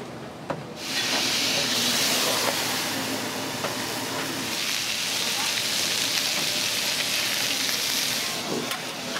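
Pork belly slices and vegetables frying on a hot flat iron griddle: a loud, steady sizzle that starts suddenly about a second in.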